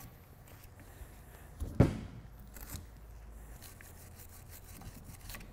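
Small wire brush scrubbing rust scale off the pad slide areas of a brake caliper carrier, a run of short scratchy strokes, with one sharp knock about two seconds in.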